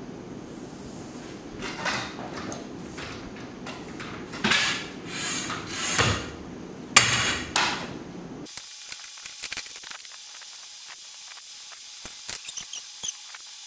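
Canvas awning fabric rustling and swishing in several bursts as it is pulled out and rolled up around its aluminium pole, with a sharp knock about seven seconds in and a few light clicks near the end.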